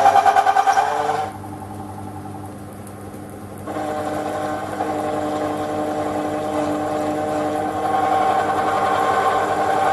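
Small bench metal lathe spinning an electric motor armature at 460 rpm while the tool turns its copper commutator: a steady mechanical whine with several pitched tones. About a second in it drops to a quieter hum for two or three seconds, then comes back up and holds steady.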